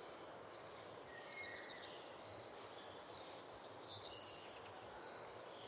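Faint birdsong: two short phrases of high chirping, about a second in and again near four seconds, over a soft steady hiss of morning ambience.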